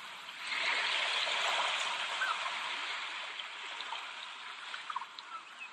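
Steady rushing sound of flowing water, like a stream, slowly fading away.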